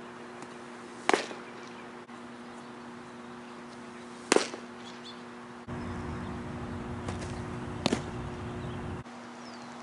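Three pitched baseballs popping sharply into a catcher's mitt: about a second in, just past four seconds, and near eight seconds. A steady low hum runs underneath, with a low rumble added from about six to nine seconds.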